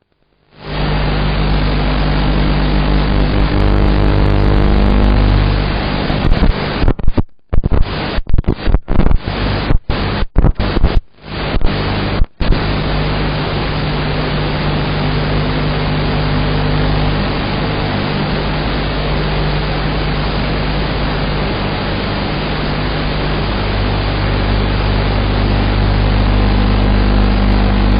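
Steady low hum of a 7-inch Tyro129 FPV quadcopter's motors and 5040 propellers, buried in heavy hiss. The sound cuts out and stutters repeatedly from about six to twelve seconds in, then runs on steadily.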